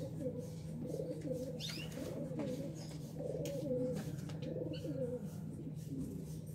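Dove cooing: low, wavering coos repeated for about five seconds, with two brief high chirps between them.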